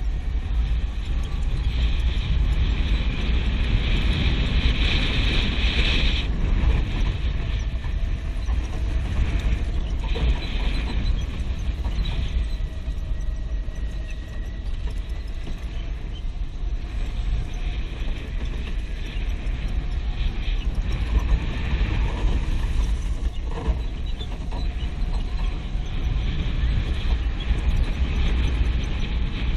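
Go-kart engine running as the kart is driven round the track, heard from on board with heavy wind rumble on the microphone. Its pitch drifts up and down a little, and it gets somewhat quieter around the middle.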